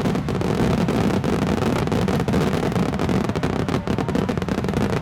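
Dense barrage of a large star mine fireworks display: many shell bursts and crackles fired in rapid succession, merging into one continuous loud rumble.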